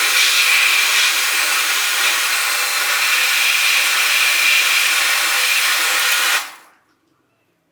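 A tool running steadily with a hissing whine, then fading out to silence about six and a half seconds in.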